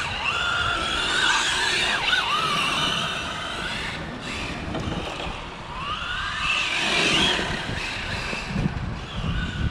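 Radio-controlled Traxxas Slash 2WD truck's Tekin 4600kV brushless motor whining, its pitch gliding up and down as the truck speeds up and slows. The whine surges about a second or two in and again about seven seconds in.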